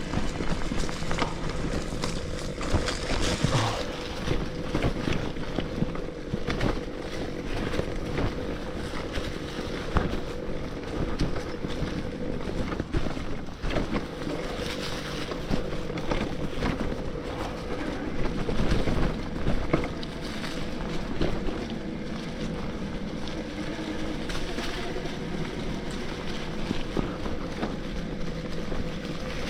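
Bafang BBSHD mid-drive motor on an electric mountain bike whining under power while riding a dirt trail, with tyre noise, frequent knocks and rattles from the bike over rough ground, and wind on the microphone.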